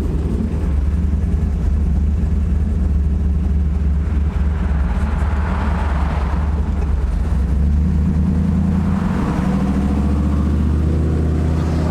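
Chevrolet Camaro's engine running and tyres on the road, heard from inside the car while driving, with the engine pitch rising a little near the end as it accelerates.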